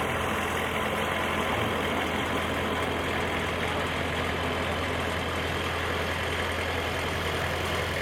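Sawmill engine running steadily at an even pitch, with no change in load.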